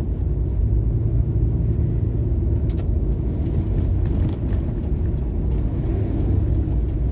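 Steady low rumble of a car's engine and tyres on the road, heard from inside the cabin while driving, with a brief click about three seconds in.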